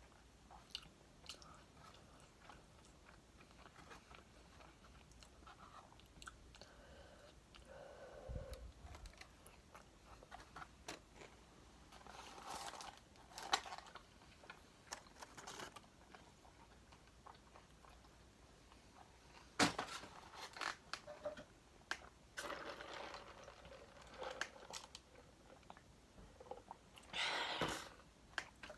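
Close-up chewing and crunching of crispy fried chicken wings: scattered bites and crunches with quiet gaps between them, a sharp crunch about two-thirds of the way through and a cluster near the end.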